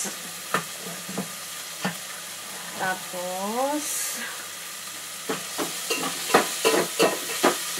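Garlic, onion and tomato sautéing in a pan, sizzling steadily. A cooking utensil knocks and scrapes against the pan a few times in the first two seconds, then in a quick run of strikes from about five seconds in.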